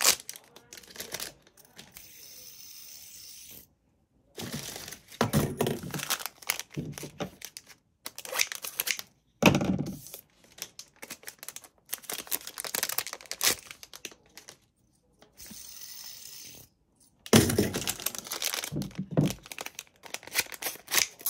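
Thin plastic packaging bags crinkling and tearing in irregular bursts as they are handled and pulled open, with a few sharper loud crackles.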